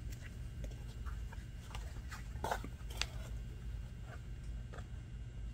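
Hand-sewing leather with artificial sinew: faint scratching and rustling as the sinew is drawn through the stitch holes and the leather is handled, with a few small clicks scattered through.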